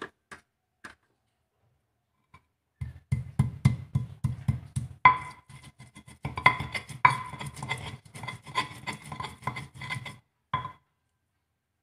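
Stone pestle (ulekan) pounding spice-paste ingredients (shallots, garlic, chilies, turmeric, candlenut) in a black stone mortar (cobek): a quick run of ringing knocks that starts about three seconds in and stops near the end, after a few light clicks as the ingredients drop into the mortar.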